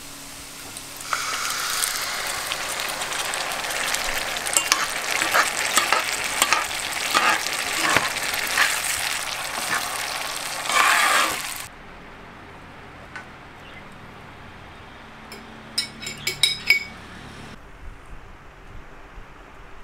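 Minced tomato sizzling loudly as it hits a frying pan of hot onions and is stirred, with the metal spoon scraping and clinking in the pan. The sizzle cuts off abruptly about 12 seconds in, leaving a quieter stretch broken by a quick run of light clicks.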